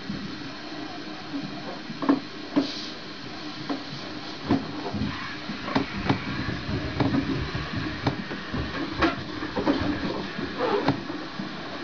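Latex balloons being handled and shifted, with scattered soft knocks and rubbing over a steady background noise, and a brief hiss about two and a half seconds in.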